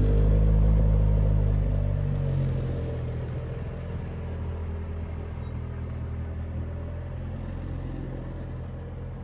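A 1996 Acura Integra GSR's four-cylinder engine, breathing through a newly fitted catback exhaust, falls from a rev back to a steady idle in the first couple of seconds, then idles with a low exhaust rumble.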